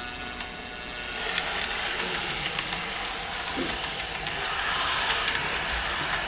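HO-scale model trains running on a layout. In the first second there is an electric motor hum with a whine, then a rising rolling rattle of wheels on track with scattered sharp clicks.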